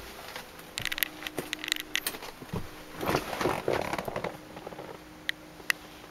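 Handling noise of someone moving about inside a car's rear cabin: irregular clicks, scrapes and rustling, busiest about three to four seconds in.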